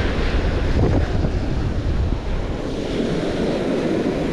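Ocean surf breaking and washing up a sandy beach, with wind buffeting the microphone in a steady low rumble.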